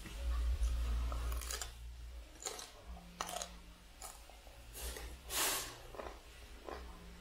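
Raw broccoli being bitten and chewed close to the microphone: a run of irregular crunches, the longest and loudest about five and a half seconds in. A low rumble sits under the first couple of seconds.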